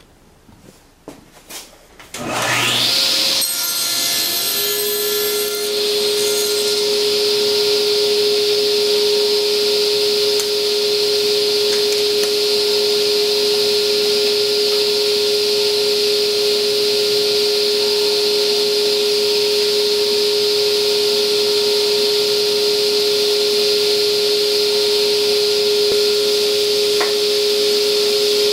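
Table saw switched on after a few faint knocks, its motor winding up to speed about two seconds in and then running steadily with a constant hum and hiss while the jig feeds the wood past the blade to cut the face of a tenon.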